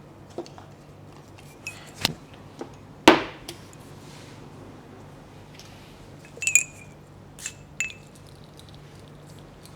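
Glass perfume bottle being handled: scattered clicks of the bottle and its cap, the loudest about three seconds in, and two ringing glass clinks near the end.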